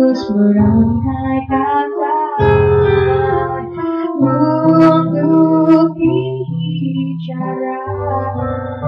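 A woman singing a slow song with guitar accompaniment.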